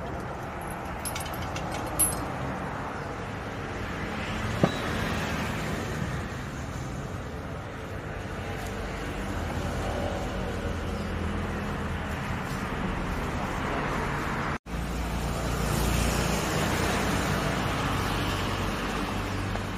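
Steady low rumble of traffic, with a few light metallic ticks and one sharp click as hands work at an engine's fittings. The rumble gets louder after a short break about fifteen seconds in.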